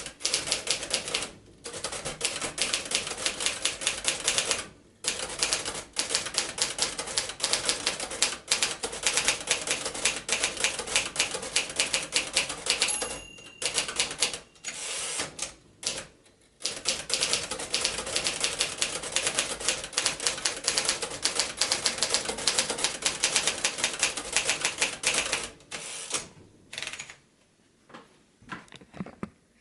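1951 Royal Quiet De Luxe portable typewriter being typed on: fast runs of key strikes broken by short pauses, thinning to a few single strokes near the end.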